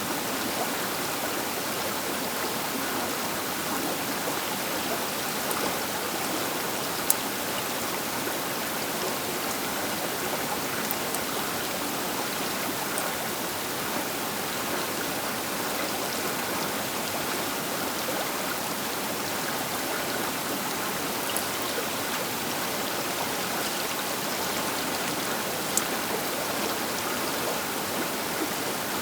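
A large river flowing past its bank: a steady, even rush of water, with a few faint sharp drips or splashes.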